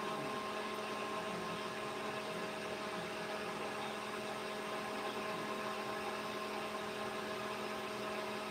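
Steady electrical hum: several fixed tones over a faint whirring hiss, unchanging.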